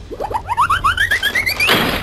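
Cartoon sound effect: a quick run of short rising chirps, about eight a second, climbing steadily in pitch, ending in a short hiss near the end.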